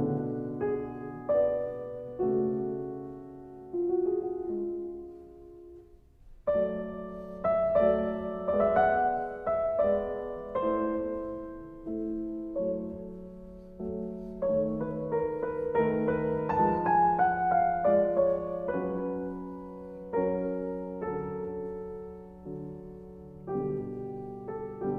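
Solo piano music, slow and gentle, with chords and melodic phrases that ring and fade, thinning almost to nothing about six seconds in before resuming.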